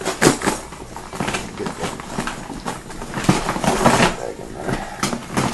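Plastic tackle boxes and lures being handled: irregular clattering, clicks and knocks of hard plastic with rustling in between.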